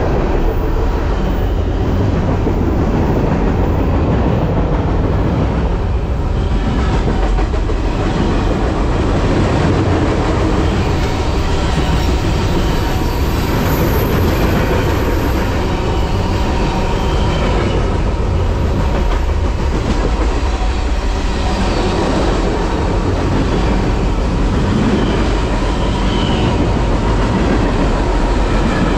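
Moving BNSF freight train heard from aboard one of its cars: loud, steady running noise of the train rolling on the rails.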